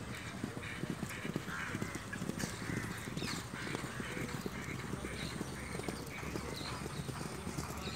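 Racehorses galloping on a grass track: a rapid, continuous run of dull hoof strikes on turf.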